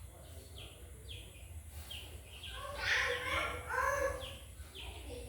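Chick peeping: short, high, falling peeps repeating about twice a second. Between about three and four seconds in, a louder, lower sound with several tones cuts in.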